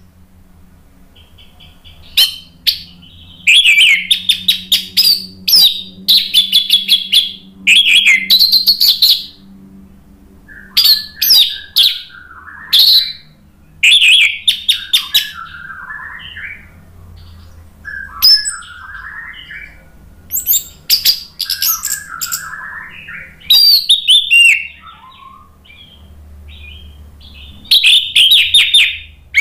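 Orange-headed thrush (anis merah) in full song: loud phrases of quick, high notes a second or two long, with short pauses between them and softer, lower warbling in some of the gaps. This is the open, full-throated song (gacor, ngeplong) played as a lure to spur other anis merah into singing.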